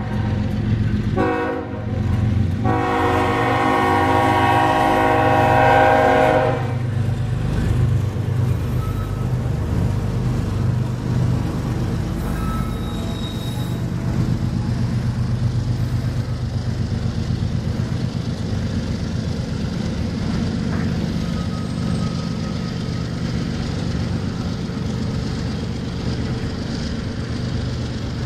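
Air horn of a BNSF GE ES44DC diesel locomotive sounding a short blast, then a long blast of about four seconds at the grade crossing, the close of the crossing horn signal. Then the locomotives and a long string of double-stack intermodal well cars run past with a steady low rumble and wheels clacking over the rails.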